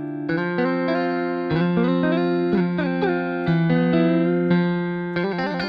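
Sampled Fender Stratocaster electric guitar from a sample library, played from a keyboard: clean sustained notes, a new one starting about every second and ringing on, with a quick run of short notes near the end.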